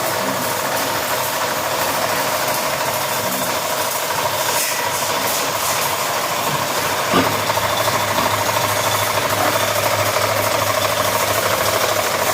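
An engine-like machine running steadily with a rattling texture. About seven seconds in there is a short click, and a low steady hum joins.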